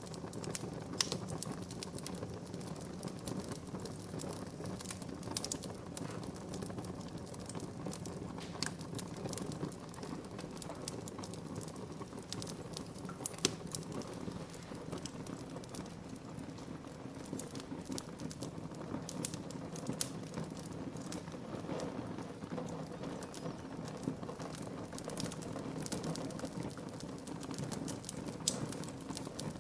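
Wood fire burning in a fireplace: a steady low rush with frequent sharp, irregular crackles and pops of burning wood.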